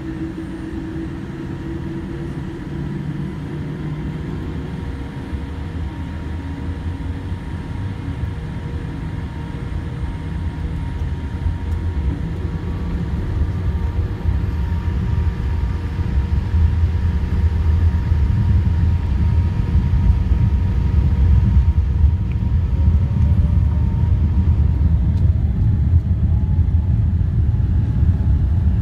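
Cabin noise of a Boeing 787-8 on its takeoff roll: a low engine and runway rumble that grows steadily louder as the jet accelerates, with a few faint steady tones above it.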